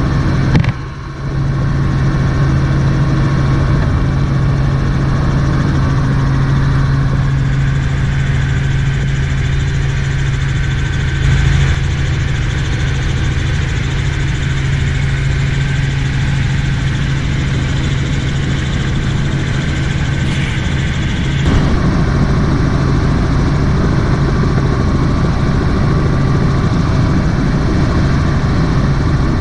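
Helicopter in flight heard from inside the cabin: the engine and rotor make a steady, loud drone with a strong low hum. The drone dips briefly about a second in.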